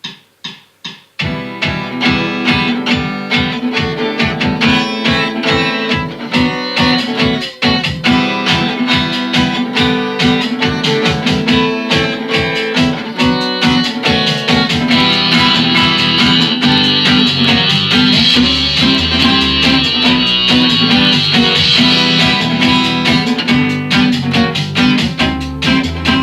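Instrumental rock intro on guitars over a steady beat, opening with a few clicks of a count-in; a brighter high part comes in around the middle for several seconds.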